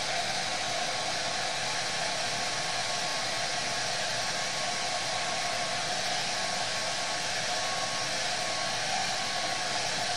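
Handheld hair dryer running steadily, blowing air to dry fresh paint on a suede roller skate: an even rush of air with a faint whine.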